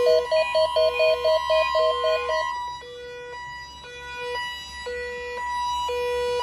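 NOAA Weather Radio warning alarm tone, a single steady tone of about 1050 Hz, sounding as the weekly alert test. Over it a beeping alert pattern pulses quickly for about the first two and a half seconds, then slows to longer alternating beeps.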